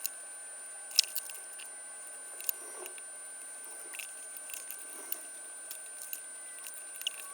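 Scattered light clicks and taps of hands and small tools working on a stereo receiver's chassis and controls, the sharpest about a second in. Underneath is a faint steady hiss with two thin high tones.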